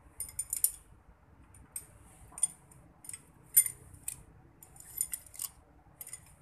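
Steel push rods clinking against each other and the engine as they are drawn out of a tractor engine one by one and bunched in a hand: a string of light metallic clicks and clinks, coming in small clusters.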